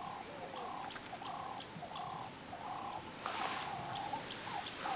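A bird calling over and over, a short mid-pitched call about every two-thirds of a second, with faint high ticks between the calls. A brief hiss comes a little past the middle.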